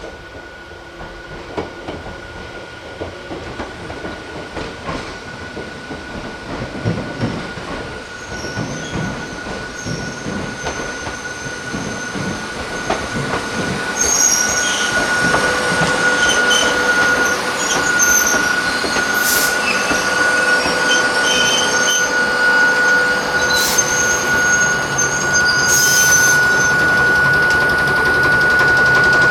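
Hakone Tozan Railway electric train running on the mountain line, its wheels knocking over the rail joints as it grows louder. From about halfway, a steady high-pitched squeal from the wheels on the curves joins in.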